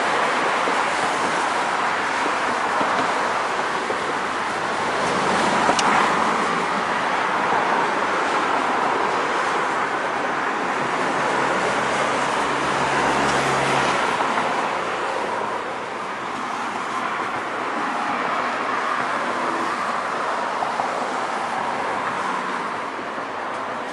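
Steady hiss and rumble of road traffic going by, an even wash of noise with no single vehicle standing out.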